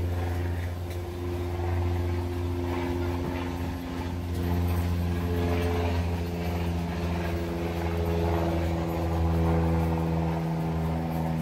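A motor running: a steady low hum with a stack of higher overtones, some of which shift in pitch about four and a half seconds in.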